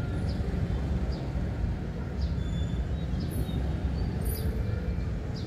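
Steady low background rumble, with a bird's short, falling chirps repeating about once a second.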